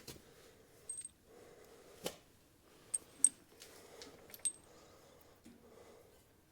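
Scattered sharp metallic clinks and taps, about eight in all, a few with a brief high ring, from tools and parts on a Polaris Ranger 800 CV axle being worked into place. The loudest comes a little past three seconds in.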